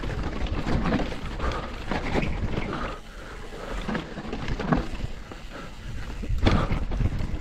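YT Decoy electric mountain bike running fast down a dirt trail: a steady low rumble of wind and tyre noise, broken by several sharp knocks as the bike hits bumps.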